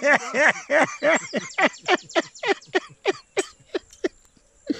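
A person laughing: a long run of short 'ha' bursts, quick at first, then spacing out and fading away.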